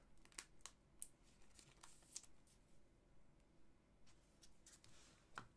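Near silence with a few faint, scattered ticks and rustles from hockey trading cards being handled.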